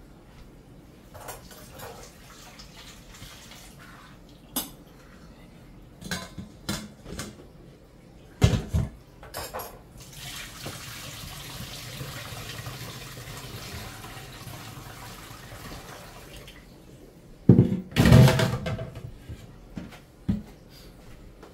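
Kitchen dishes, pots and cutlery clattering and knocking at irregular moments. Water runs from a tap for about six seconds midway, and the loudest clatter comes near the end.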